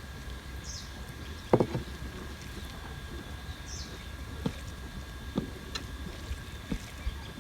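Eating sounds: scattered soft knocks and clicks of food and dishes, the loudest about a second and a half in, over a steady faint hum, with two short high chirps.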